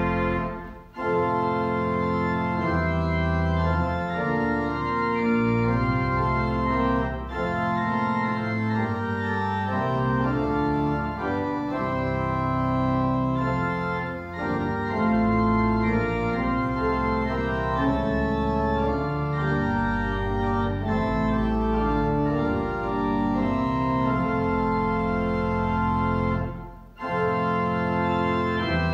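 Church organ playing a hymn tune in sustained chords. The sound breaks off briefly twice between phrases, about a second in and again near the end.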